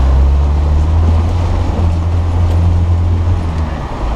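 Land Rover engine running steadily under load while the vehicle wades through a river, with water splashing and surging against the bodywork. The engine note drops near the end.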